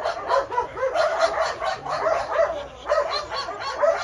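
Many dogs in shelter kennels barking and yipping at once, a continuous overlapping din of short barks.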